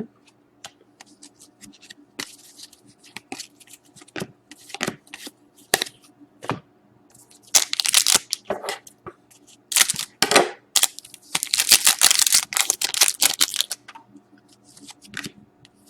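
Foil wrapper of a hockey card pack crinkling and tearing, mixed with clicks and rustles of cards being handled. Scattered crackles give way to two longer stretches of crinkling, about eight seconds in and from about ten to thirteen seconds.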